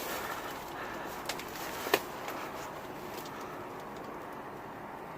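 Steady faint outdoor background noise with a few light clicks and one sharp knock about two seconds in.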